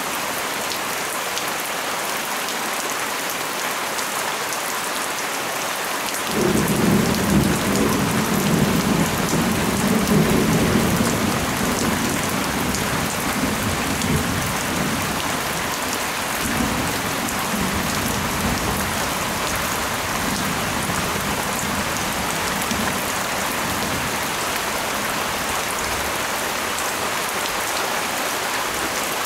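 Steady rain falling throughout. About six seconds in, a long roll of thunder breaks in suddenly, rumbles loudest for several seconds, then dies away slowly over the next dozen seconds.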